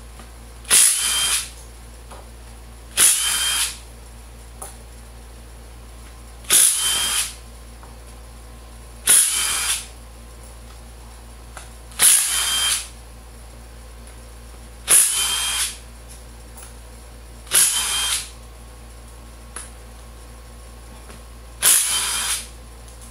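DeWalt cordless impact driver backing out the cover bolts of a Ford power transfer unit case: eight short bursts a few seconds apart, each loudest as it starts and easing off as the bolt comes free.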